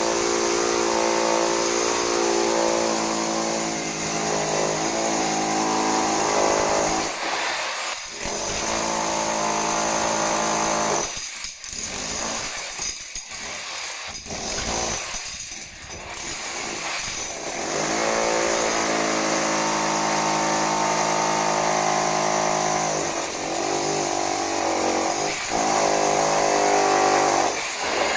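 A small electric motor running with a steady hum. It cuts out briefly about a quarter of the way in, stops and starts several times in the middle, then runs steadily again.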